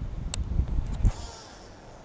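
Wind buffeting the microphone as a low, uneven rumble that eases off about a second in, with one sharp click about a third of a second in.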